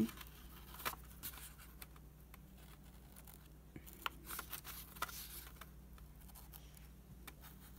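Faint scratching and tapping of a Sharpie fine-point permanent marker drawing short strokes on thin paper, over a low steady hum.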